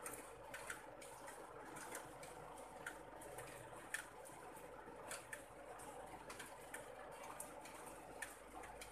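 Light rain falling: a faint steady hiss with scattered drops ticking irregularly.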